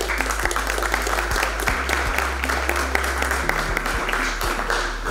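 Audience applauding: many hands clapping at once in a large room, easing off near the end.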